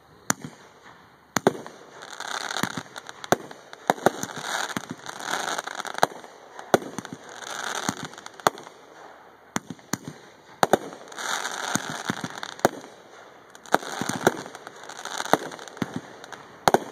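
Aerial firework shells fired from mortars bursting in quick succession: sharp bangs every half second to a second, with patches of crackling in between.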